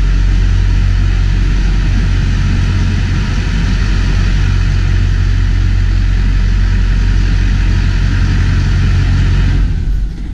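Duramax diesel engine swapped into an H2 Hummer, running steadily with a deep, even drone. The sound drops away sharply near the end.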